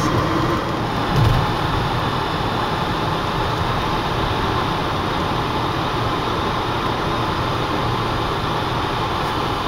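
Steady road noise inside a car's cabin at highway speed, tyres and engine running evenly, with a brief low thump about a second in.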